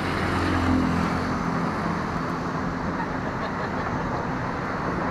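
Steady road traffic noise, with a vehicle engine running close by in the first second or two and then fading away.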